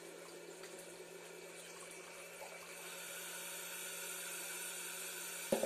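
Electric centrifugal cream separator running with a steady low hum while milk is poured into its stainless steel bowl and trickles from the skim spout into a cup. The liquid sound grows louder about halfway through, and a sharp click comes near the end.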